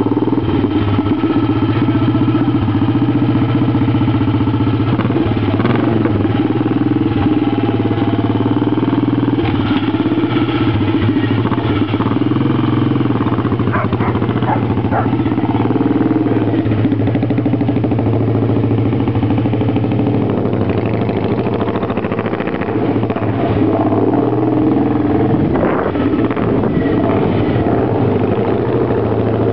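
Neville Evans 500cc single-cylinder overhead-cam racing engine of a Norton Manxman motorcycle running loud and steady, with a few light clatters partway through.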